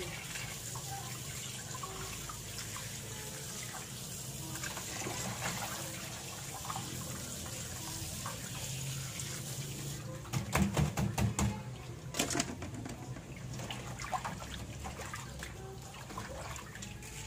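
Tap water running into a metal basin in a sink, with splashing and sloshing as hands rub and rinse fish in the water. A burst of clattering knocks comes about ten seconds in, and a single knock follows about a second later.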